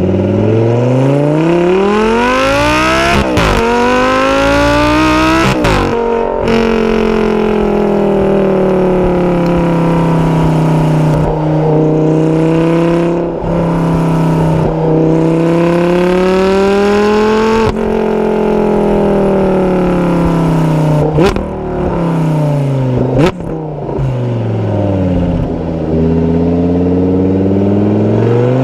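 Lamborghini Gallardo LP560-4's V10 exhaust, recorded close to the tailpipes while driving. The engine revs up with two quick upshifts in the first six seconds, then runs at a steadier speed that slowly rises and falls, breaks sharply twice a little after the middle, drops away and climbs again near the end.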